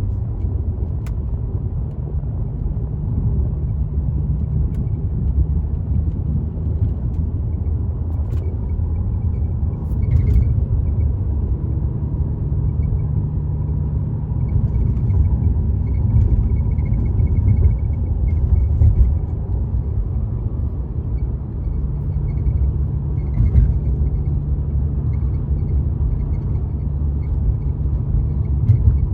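Cabin road rumble of a 2019 Mercedes-Benz CLS450 driving over uneven road. A faint, high chirping squeak comes and goes many times, with a few sharp knocks from bumps. The squeak appears only over bumps and stops when the car is at rest; the owner does not think it comes from the engine, and its source is still untraced.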